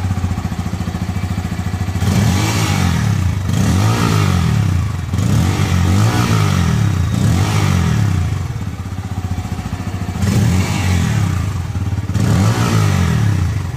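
Bajaj Pulsar N160's 164.82 cc single-cylinder four-stroke engine running through its underbelly exhaust, idling with about six throttle blips. Each rev rises in pitch and drops back to idle.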